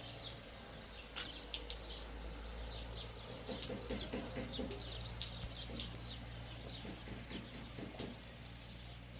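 Small birds chirping over and over in quick, short falling notes, with a few lower calls about halfway through and a steady low hum underneath.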